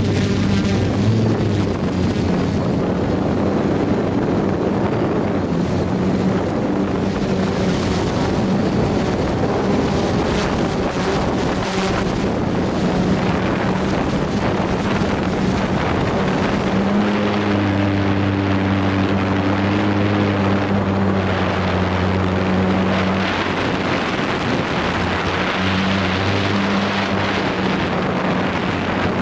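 DJI F450 quadcopter's motors and propellers whirring steadily, heard from on board, with a hissing rush of wind over the microphone. The motor pitch rises for several seconds about two-thirds of the way in, then settles back.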